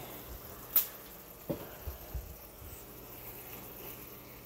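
Adobo sauce with chicken livers simmering faintly in a frying pan, with a sharp click a little under a second in, then a lighter knock and a couple of low thumps.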